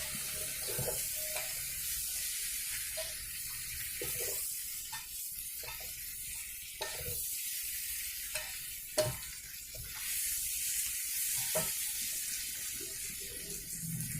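Stir-fry of mullet and green chillies sizzling steadily in the pan, with a few light clicks of a utensil against it.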